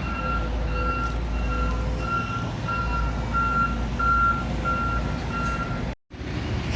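Reversing alarm on a heavy construction machine, a steady single-pitch beep repeating about one and a half times a second over the low rumble of a diesel engine. The beeping stops near the end at a brief break in the sound, and the engine rumble carries on.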